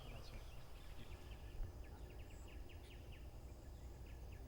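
Outdoor ambience with a small creature's short, high, downward chirps repeating about two or three times a second over a low background rumble. There is a faint low thump about a second and a half in.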